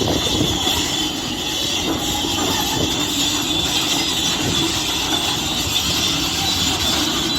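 Heavy diesel earthmoving machinery running steadily.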